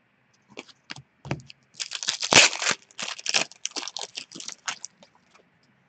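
Upper Deck hockey trading cards being handled and flicked through in the hands: an uneven run of short rustles, slides and clicks of card stock, busiest around two to three seconds in.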